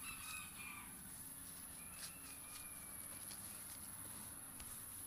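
Faint outdoor ambience: a steady high-pitched insect drone, with a few soft rustles and clicks from moving through weedy ground cover.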